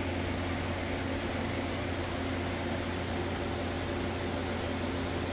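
A steady machine hum with a low, even pitch that holds unchanged throughout.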